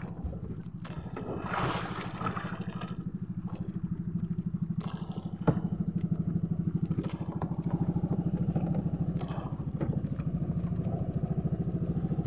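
A small boat engine running steadily, a low, fast, even putter that grows a little louder about five and a half seconds in. A few sharp knocks sound over it.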